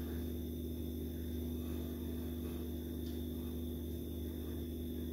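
Steady low electrical hum with a faint high whine: room tone with no other sound.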